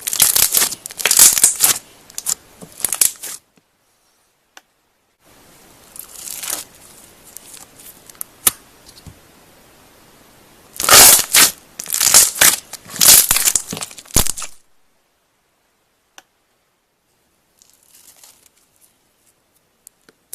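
Slime being squeezed and pulled, making bursts of dense sharp clicks and pops for the first few seconds and again about eleven seconds in, with a faint hiss between them.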